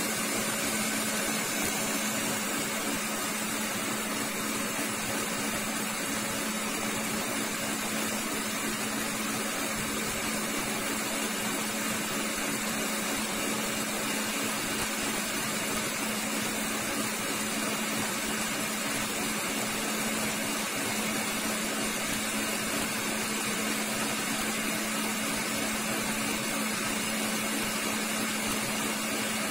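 Electric stand mixer running steadily at high speed, its wire whisk beating non-dairy whipped cream paste in a stainless steel bowl to build volume. A steady motor hum.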